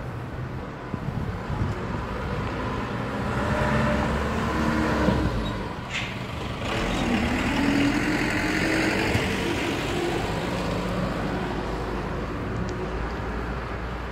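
A motor vehicle going by: its engine noise swells, its engine note rises about seven seconds in, then it slowly fades.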